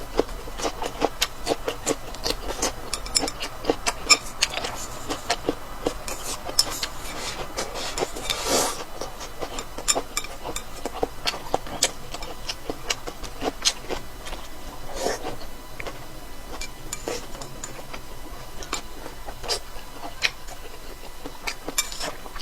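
Close-miked chewing and eating: a dense, irregular run of wet clicks and crunches from mouth and food, with a longer noisy smear about eight and a half seconds in and another about fifteen seconds in.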